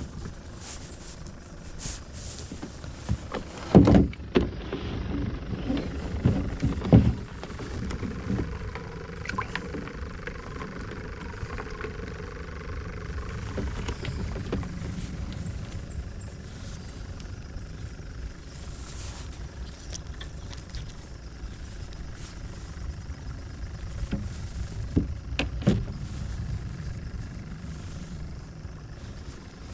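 Knocks and bumps of fishing gear being handled in a plastic kayak, loudest about four and seven seconds in and again near the end, over a steady low rumble.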